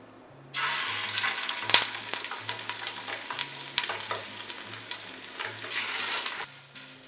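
Raw skin-on chicken legs searing in hot oil in a stainless steel stockpot: a sizzle starts suddenly about half a second in as the meat hits the pan, with scattered crackles and spits, and eases near the end.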